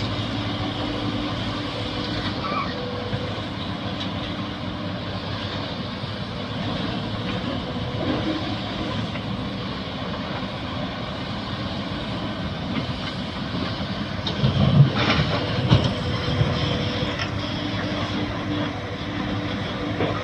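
Excavator's diesel engine running steadily under load, with a steady hum, and a cluster of louder knocks and clanks about fifteen seconds in.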